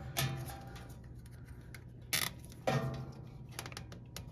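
Plastic zip tie being pulled tight around a washing machine lid switch, its ratchet giving short clicks and one brief zipping pull about two seconds in, over a low steady hum.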